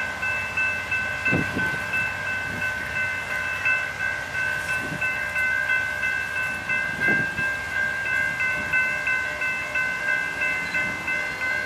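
Railroad grade crossing bell ringing in a quick, steady, even rhythm: the crossing signals are active, warning of an approaching train.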